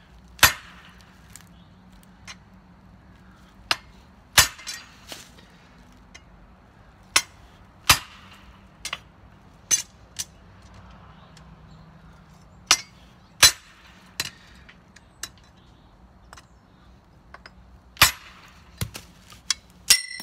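Hammer blows on a handled cold cut (blacksmith's cold chisel) driving it through cold eighth-inch steel flat bar: about fifteen sharp metallic strikes at uneven intervals, some ringing briefly. A ringing metallic clink comes at the very end.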